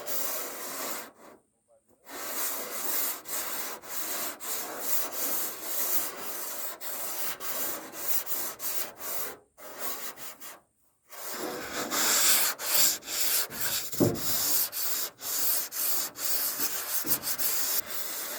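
Sandpaper rubbed by hand over a steel truck body panel in repeated back-and-forth strokes, scuffing off old paint, with a couple of short pauses between runs of strokes.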